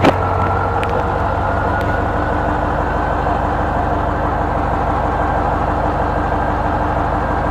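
Old farm tractor's engine running steadily, with an even, fast low rhythm. A single knock at the very start.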